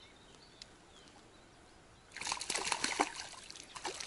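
A hooked crucian carp splashing at the surface of the river, starting about two seconds in as irregular, rapid sloshes and splatters.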